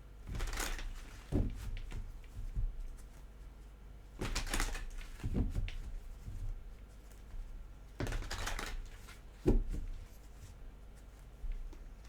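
Tarot cards being shuffled and handled in three bouts of rustling clicks, about four seconds apart, each followed by a short thump.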